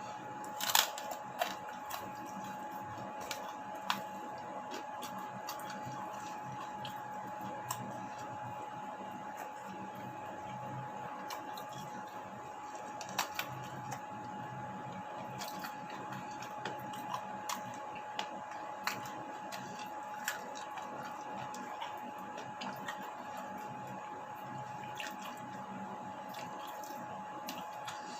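Someone eating a meal: scattered sharp clicks and wet mouth sounds of chewing, over a steady high hum.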